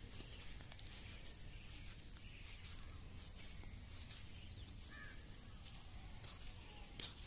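Quiet rural outdoor ambience with a low steady rumble and a faint bird call about five seconds in.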